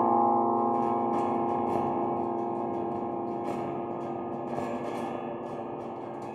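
Metal strings of a large spider-shaped sound sculpture ringing on after being struck, a dense chord of many tones slowly dying away, with a few faint ticks over it.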